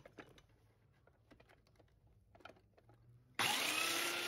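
A few faint clicks of handling, then about three and a half seconds in a benchtop belt sander is switched on: its motor spins up and runs with a steady whine over the rushing noise of the belt.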